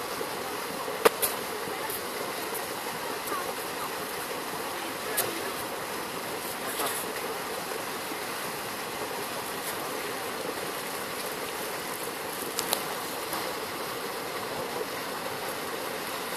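Steady outdoor background rush with no clear single source. Short sharp clicks break it: two about a second in and two more around twelve and a half seconds.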